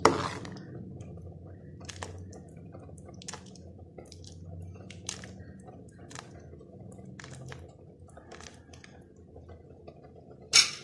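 Coconut fish curry simmering in a pot: scattered soft pops of bursting bubbles over a low steady hum. A sharp knock of cookware right at the start and again near the end.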